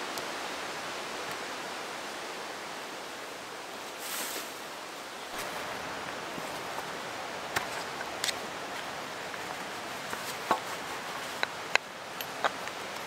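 Steady rustling hiss of wind in the woodland trees. From a little past halfway come scattered sharp clicks and light knocks as a hand auger is handled and drawn out of its canvas pouch.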